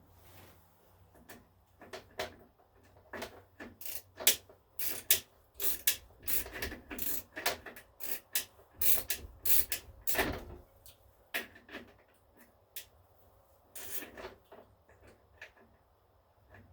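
Irregular clicks, knocks and clatter of hand tools and metal engine parts being handled while a small twin-cylinder engine is taken apart, busiest in the middle and thinning out towards the end.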